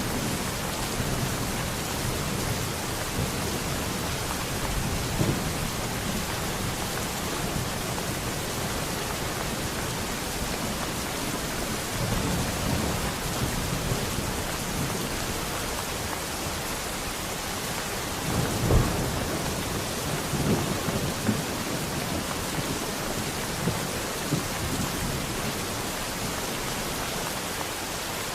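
Steady rain falling, with low rolls of thunder swelling now and then, the strongest about two-thirds of the way through.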